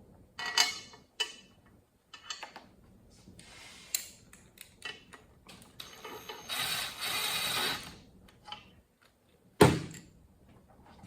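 Clinks and knocks of steel bolts and hand tools being handled while the tail-housing bolts go into an NV4500 transmission case, with a rasping stretch of about a second and a half in the middle. One sharp knock near the end is the loudest sound.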